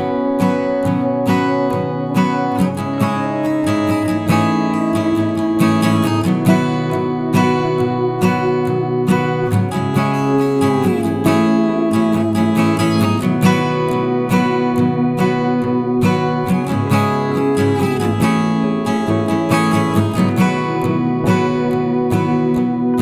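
Background music: acoustic guitar, plucked and strummed, with a steady rhythm.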